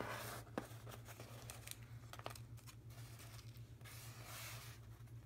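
Paper die-cut pieces and their clear plastic packaging handled and swept across a tabletop by hand: faint rustling and crinkling with a few light clicks, over a steady low hum.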